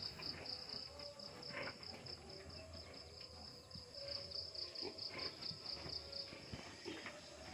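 Faint cricket-like insect chirping, a high, rapidly pulsing trill that stops about six seconds in. Under it, faint scattered knocks and snuffles from piglets nosing at a hanging plastic bottle.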